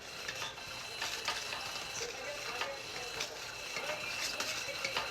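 The small electric motor and plastic gears of an automatic cat toy running, with a steady whine and irregular clicking and rattling.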